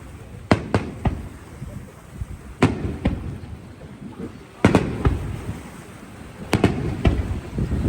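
Aerial firework shells bursting: sharp bangs in clusters of two or three, each trailing off in a rumbling echo, a new cluster about every two seconds.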